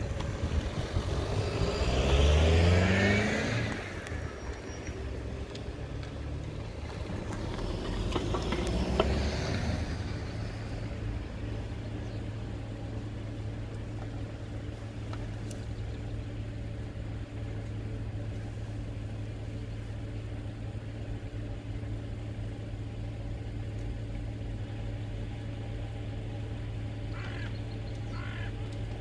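Car engines and tyres on the car park: one car accelerates with a rising engine note, and a second vehicle passes a few seconds later. After that, a steady low hum continues, and a crow caws a few times near the end.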